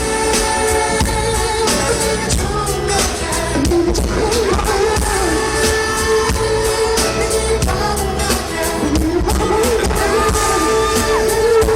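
Live K-pop song: a sung vocal line with long held notes over a band or backing track with a steady beat, recorded from the concert hall.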